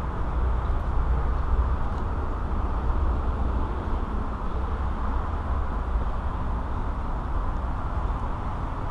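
Steady low outdoor background rumble, even throughout, with no distinct events standing out.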